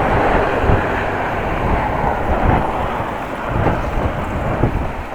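Strong wind buffeting the microphone while cycling into a headwind: a loud, low rumble that rises and falls in gusts.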